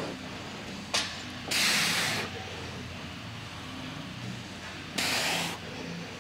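A lifter breathing out hard twice, about three and a half seconds apart, while pulling reps of seated cable rows, with a short click about a second in.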